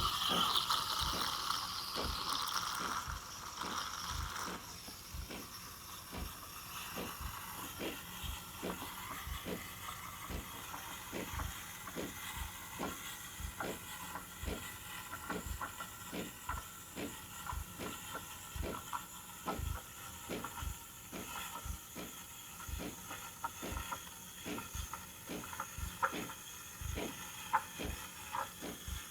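Delonghi Dedica Deluxe steam wand hissing as it steams milk on the hot-milk setting. The hiss is strongest in the first few seconds, then settles lower. A regular clicking runs through it, the machine's pump pulsing water into the thermoblock to make steam.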